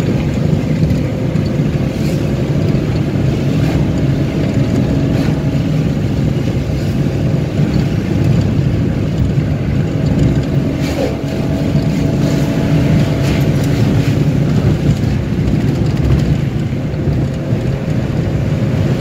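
Car driving at highway speed, heard from inside the cabin: a steady engine and tyre hum with a few faint ticks.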